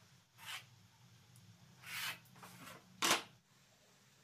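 Hand tools handled on a plywood sheet: two short scraping strokes, then a sharper knock of a tool on the board near the end, the loudest sound. A faint steady low hum runs underneath.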